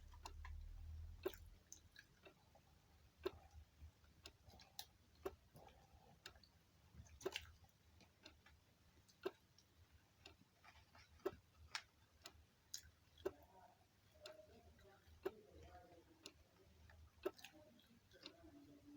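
Near silence with faint, regular ticking: a sharp tick about once a second, a stronger one every two seconds.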